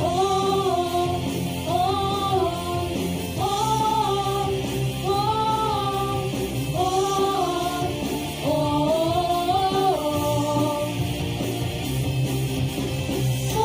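Introduction of a pop song for a children's vocal ensemble: a smooth, sustained melody in repeated phrases of about a second and a half over a backing track with guitar.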